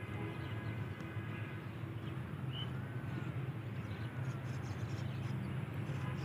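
Open-air wetland ambience: a steady low rumble with a few faint bird calls, a short chirp and two brief rising-and-falling calls near the middle.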